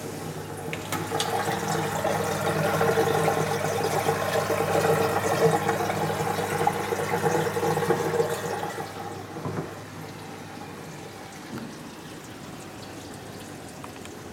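Aquarium water rushing and gurgling through the filter plumbing, with a steady pump hum. It swells about a second in and drops back to a quieter steady running near the ten-second mark.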